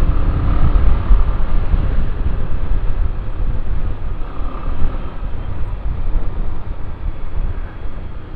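Riding noise from a motorbike at speed: a steady, loud low rumble of wind and road noise with the engine running underneath.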